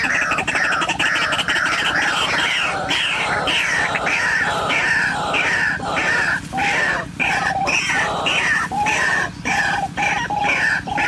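White-breasted waterhen calling: a fast, continuous run of harsh notes, each falling in pitch, about two to three a second, with lower notes joining in during the second half.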